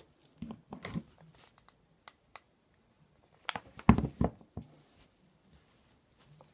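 Hands handling and pressing wadding and lace on a cutting mat: scattered light rustles and taps, with a few louder thumps about four seconds in.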